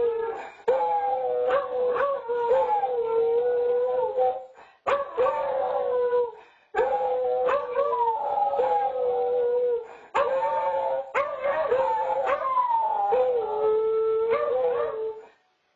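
Two beagles howling together in long drawn-out howls, a steady lower voice under a higher one that slides down in pitch. The howls break off briefly every few seconds and stop shortly before the end, heard through a home security camera's microphone.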